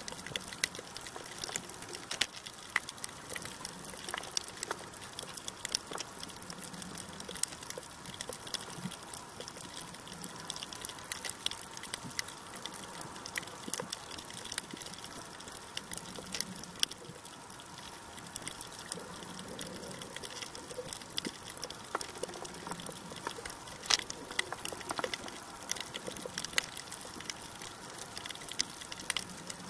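Underwater sound of water on a shallow coral reef: a steady hiss with sharp clicks and crackles scattered throughout, and soft low swells every few seconds.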